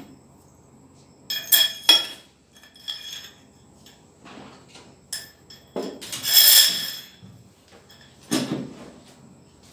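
Steel parts of a Honda CD motorcycle's front fork clinking and clanking as they are handled: a string of sharp metal knocks, with a longer metallic rattle about six seconds in.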